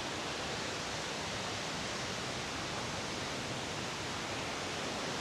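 Thi Lo Su, Thailand's largest waterfall, rushing steadily: an even wash of falling water with no breaks or changes.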